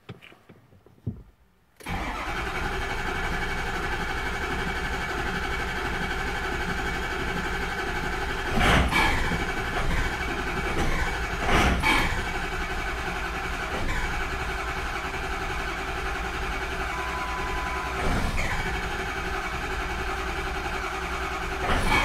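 Starter cranking a 2006 Ford 6.0 Power Stroke V8 diesel, beginning about two seconds in and running on at cranking speed with a few louder surges, without the engine starting.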